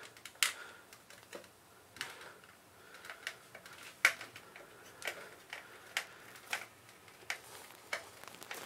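Small screws and a hand screwdriver clicking and tapping against a metal drive bracket as the screws are fitted and turned in: sharp, separate ticks at an uneven pace of roughly one a second.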